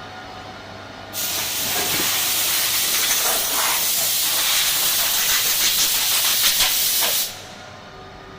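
Compressed air hissing in one steady blast of about six seconds, starting suddenly about a second in and cutting off near the end, typical of an air gun blowing chips off a part in a CNC mill.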